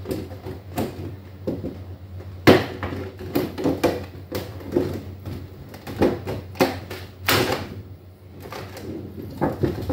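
Clear plastic wrapping on a fruit hamper crinkling and rustling as hands pull it open. Irregular crackles with a few sharper snaps; the loudest come about two and a half seconds in and again a little past seven seconds.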